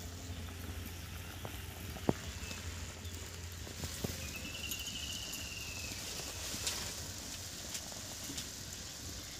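Sugar syrup at a hard boil in a pan, bubbling with a steady patter over a low hum. A few sharp clicks come through it, the loudest about two seconds in, and a short high trill-like chirp sounds around the middle.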